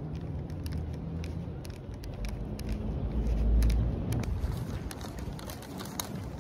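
Outdoor street ambience while walking: a low rumble of traffic and wind on the microphone that swells about three seconds in, with scattered light clicks and rustles.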